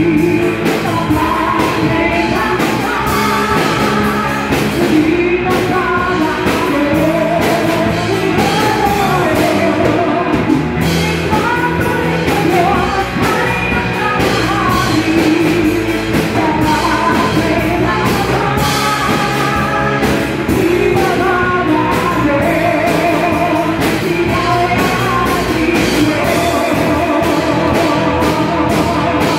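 A live band playing a song, with electric guitar and drums, while a woman sings a melody into a microphone.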